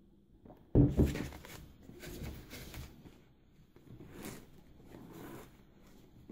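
Hands handling a gold-painted plastic bowl egg and rustling a ribbon bow as it is adjusted around the rim: a sharp knock about a second in, then soft scattered rustles and scrapes.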